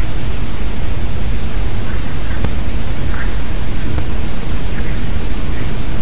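Loud, steady hiss and rumble of wind on the microphone. A few faint, short bird calls come through it about two, three and five seconds in.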